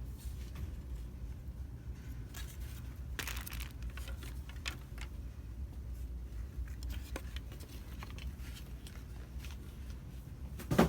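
Shop background with a steady low hum, scattered light clicks and a brief crinkling rustle about three seconds in. A single loud thump comes near the end.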